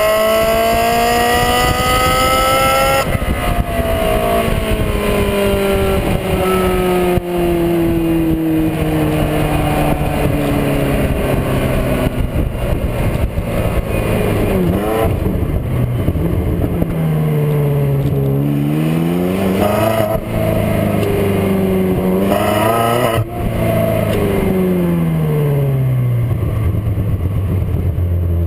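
Ferrari 360 Modena's V8 exhaust, heard right at the tailpipes while driving. The revs climb for the first few seconds, then the note falls away for several seconds, followed by a run of short drops and rises in pitch, and settles to a steadier lower note near the end.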